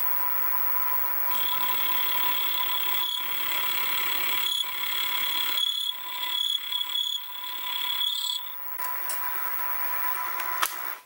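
Sieg SX2P mini mill running with a fly cutter taking a light cut across a metal arm: a steady motor whine, with a higher cutting tone over most of it. It cuts off suddenly at the end.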